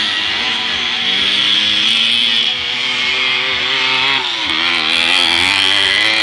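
Several small two-stroke moped engines buzzing and revving together, their pitch rising and falling as the riders work the throttles.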